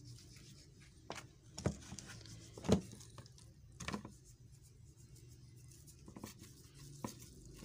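Hands turning over and pressing raw fish pieces on a plastic tray: a few soft, scattered knocks and wet slaps, the loudest a little under three seconds in, over a low steady room hum.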